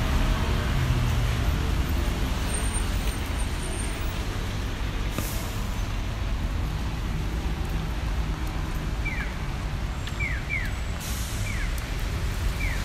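Steady city street traffic noise: a low rumble with a hiss over it from passing vehicles. A few short falling chirps come near the end.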